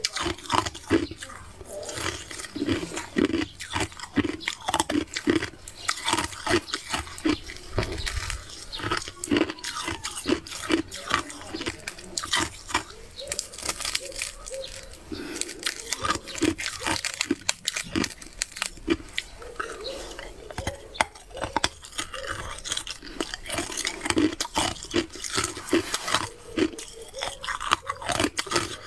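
Crunching and chewing of frosty ice close to the microphone: a rapid run of crisp crackles and crunches as pieces are bitten off a block frozen in a plastic bottle and chewed.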